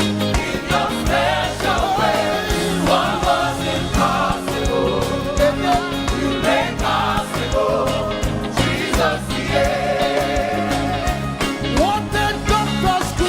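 Live gospel praise music: a congregation and choir singing over a band with drums and keyboard, the sung melody gliding and ornamented.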